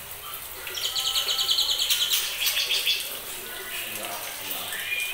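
Young white-rumped shamas, just over two months old, calling: a fast rattling trill lasting about a second, then a shorter, weaker one, with scattered short chirps between.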